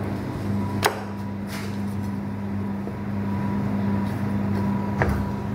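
A steady low machine hum throughout, with two sharp knocks of a knife against a plastic cutting board, one about a second in and one near the end, while a lamb leg is being boned.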